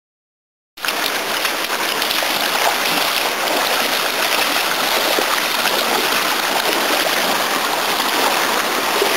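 Fast mountain stream rushing over rocks, a steady noise of white water that starts suddenly after silence about a second in.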